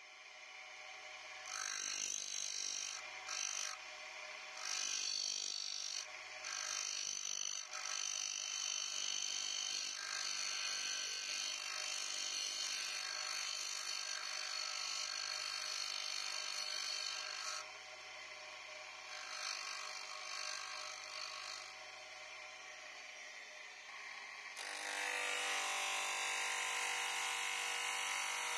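Electric bench grinder running with a steady motor hum while the wooden nock end of an arrow shaft is pressed against the spinning abrasive wheel in a series of touches, grinding the wood to shape. Near the end the sound turns louder and harsher as a thin cutting disc saws the string slot into the nock.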